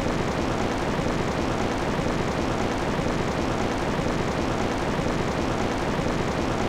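Steady, unchanging rushing noise with no melody or voice, the noise bed of a subliminal audio track.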